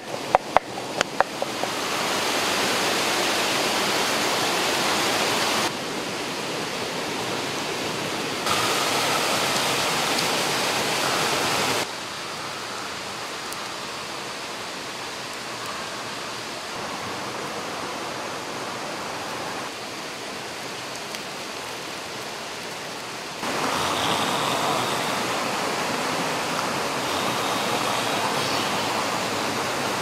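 Steady rush of a small waterfall and stream, an even hiss that steps up and down in level several times. A few sharp knocks sound in the first second and a half.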